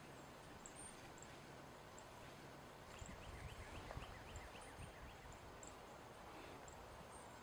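Male northern cardinal singing faintly: a quick run of about nine short, falling whistled notes, starting about three seconds in.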